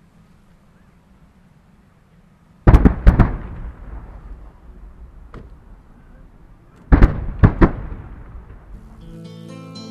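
Fireworks shells bursting in the air: a cluster of loud bangs about three seconds in and another about seven seconds in, each dying away slowly, with a single fainter crack between them. Near the end, guitar music begins.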